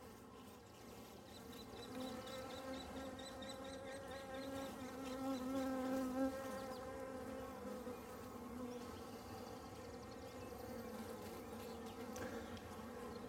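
Honey bees buzzing around an open hive in a steady, pitched hum. The hum grows louder for a couple of seconds about halfway through.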